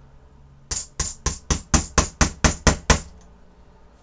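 Small hammer striking a nail held against a metal bottle cap on a wooden paint stick, punching a hole through the cap: about ten quick, evenly spaced taps, roughly four a second, starting just under a second in and stopping about three seconds in.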